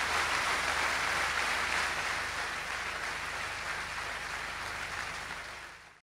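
Large audience applauding, the clapping slowly thinning and fading out near the end.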